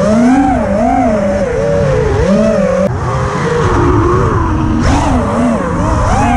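Brushless motors of a 5-inch FPV racing quadcopter (TBS Mr. Steele Silk motors) whining, the pitch swinging up and down continually with throttle changes, over a rushing noise. The sound jumps abruptly about three seconds in.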